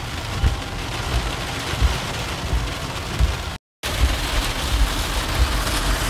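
Heavy rain falling on a car's roof and windshield, heard from inside the car as a steady hiss with low rumbling underneath. The sound drops out for a moment a little past halfway.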